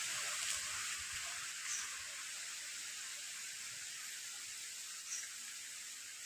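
Steady hiss of rainfall, slowly getting quieter, with two faint short high chirps.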